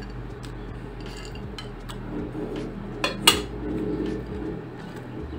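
A utensil clinking and scraping against a mixing bowl while nuts and raisins are stirred into cake batter, with two sharp knocks about three seconds in.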